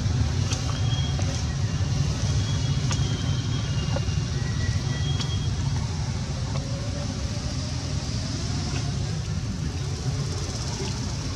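Steady low outdoor rumble, with several short, high, thin chirps in the first half.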